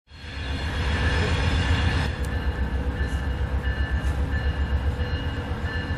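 A train running near the station platform: a steady low rumble with steady whining tones held over it.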